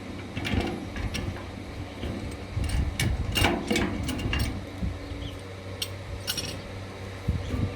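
Irregular metallic clicks and knocks of hand tools and metal hardware being handled while a metal beam connector is fitted, over a faint steady hum.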